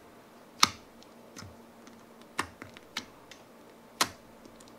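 Fingertip poking clear jelly slime in a small plastic tub, each poke giving a sharp click or pop: about five pokes, loudest about half a second in and again near the end.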